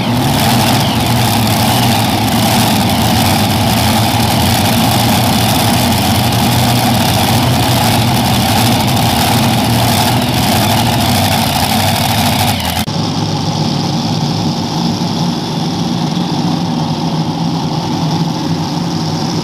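Multi-engine super modified pulling tractor with several supercharged alcohol-burning V8s, running steadily at idle right after its pull. About thirteen seconds in, the sound switches abruptly to another multi-engine super modified tractor idling, a little quieter.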